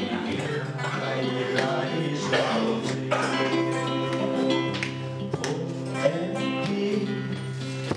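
A man singing a Vietnamese song, accompanied by a strummed acoustic guitar.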